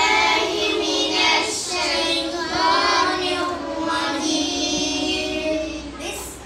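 A boy reciting the Quran aloud in the melodic, chanted qirat style, holding long notes that glide and waver in pitch, trailing off near the end.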